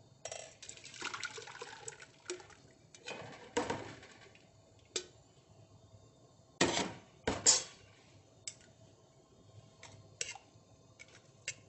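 Thick pureed soup pouring from a pan through a metal china cap strainer into a pot during the first couple of seconds. Then a metal ladle knocks and scrapes against the strainer as it pushes the soup through, with two louder knocks about six and a half and seven and a half seconds in.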